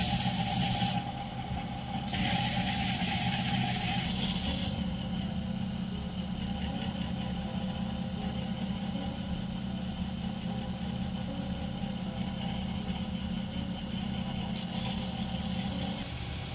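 Belt grinder motor running steadily. A wooden knife handle is pressed against the moving sanding belt, giving a rasping grind for about the first second and again from about two to five seconds in, with another short grind near the end.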